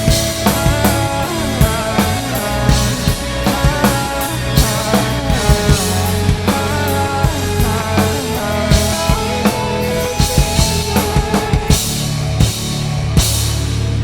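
Drum kit played along with a recorded rock song: kick, snare and repeated cymbal crashes over the track's sustained bass and synths. The drumming stops about a second before the end, leaving the backing track ringing on.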